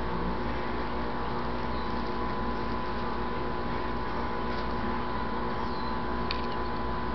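Steady mechanical hum with a constant drone, and a few faint short high clicks and chirps in the second half.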